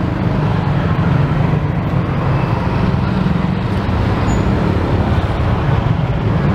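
Steady low rumble of road traffic and engines, even in level throughout, with no single event standing out.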